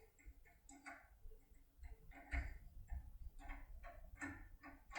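Faint, irregular ticking and clicking of a foil pick being rocked up and down inside an Omec cylinder lock under turning tension, a few clicks a second.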